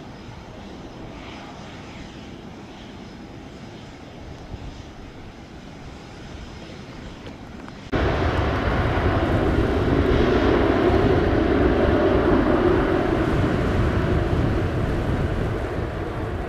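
Jet airliner engines running on the airfield: a moderate, steady engine sound, then an abrupt jump about eight seconds in to a much louder, steady jet engine rumble that eases slightly near the end.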